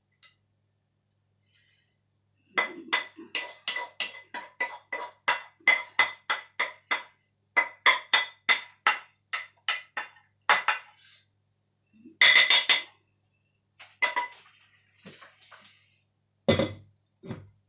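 A fast run of sharp taps on something that rings, about three or four a second, then a denser clatter and two heavier knocks near the end.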